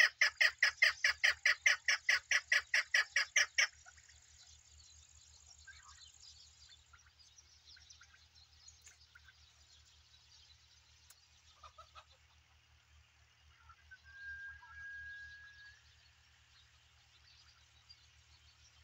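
Chukar partridge calling a fast, even series of loud chuk notes, about five a second, which stops abruptly about four seconds in. After that only faint scattered calls and a short steady whistle-like note near the end.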